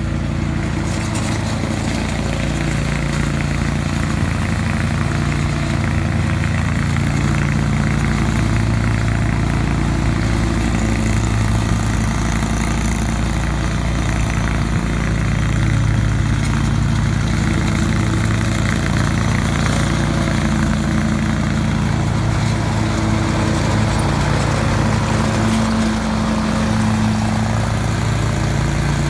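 Lawn mower engine running steadily, its pitch wavering slightly now and then.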